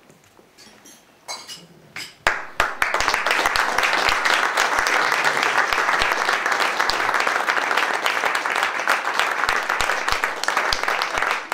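A roomful of guests applauding, breaking out suddenly about two seconds in after a few faint clicks and going on as a steady wash of clapping.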